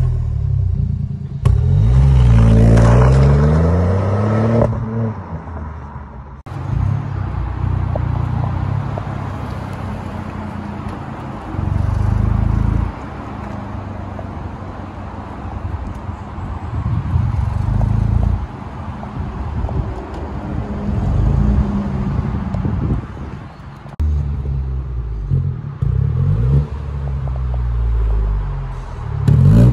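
BMW F21 118i's 1.5-litre three-cylinder turbo engine heard through an exhaust with the rear silencer (backbox) deleted. It revs up and down several times: a long rev in the first few seconds, shorter blips in the middle, and a run of quick revs near the end, with lower steady running in between.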